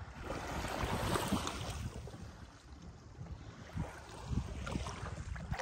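Wind buffeting the microphone in gusts, with small waves lapping on a pebbly lakeshore.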